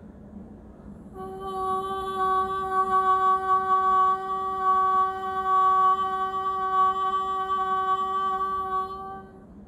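A woman's voice holding one long, steady sung note (toning) without words. It starts about a second in and stops just before the end.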